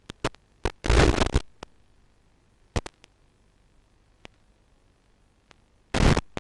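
Crackling static on the audio channel of a 5.8 GHz analog FPV video receiver recorded by the ground DVR. Sharp clicks come in the first second, then a loud burst of static about a second in, two more clicks near three seconds, and another loud burst near the end. This is radio interference noise, with no sound from the quad itself.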